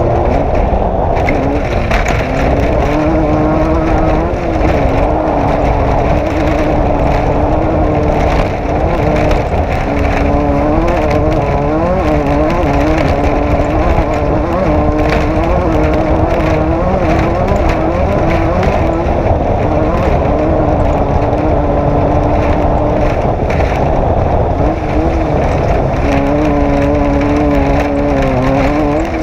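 Off-road race vehicle engine running hard, its pitch rising and falling constantly as the throttle is worked over rough ground, with frequent knocks and rattles from the chassis and suspension.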